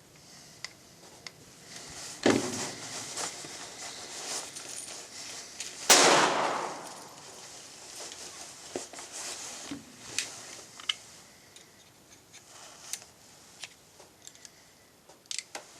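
Shots from a Glock pistol fitted with a .22 LR conversion kit that is failing to eject. There are two clear shots about two and six seconds in; the second is the loudest and echoes for a moment. Scattered sharp metallic clicks follow as the pistol is handled.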